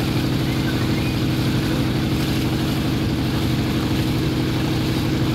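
An engine running steadily at constant speed: a low, even drone with a fast low pulse.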